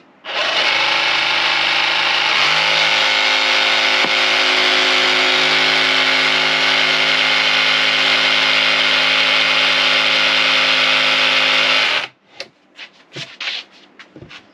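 Jigsaw with an upcut blade cutting a notch into the corner of a wood shelf board, running at a steady speed for about twelve seconds and then cutting off suddenly. A few clicks and knocks follow near the end.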